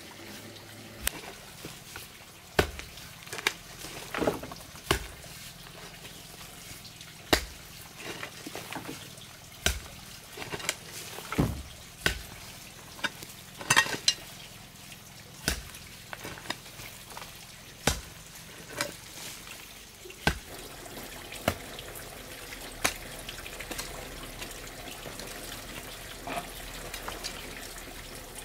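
Garden hoe chopping into loose soil, with sharp strikes at an irregular pace of about one every one to two seconds, over a steady background hiss.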